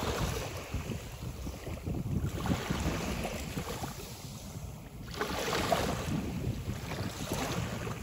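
Small sea waves washing onto a sandy beach, swelling and breaking about every two to three seconds, with wind rumbling on the microphone.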